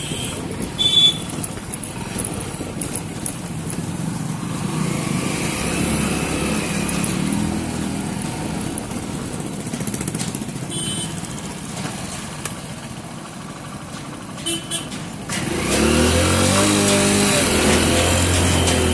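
Motorcycle running at low speed over a rough dirt lane, a steady engine and road rumble. About fifteen seconds in it turns abruptly louder, with a deeper pitched engine note.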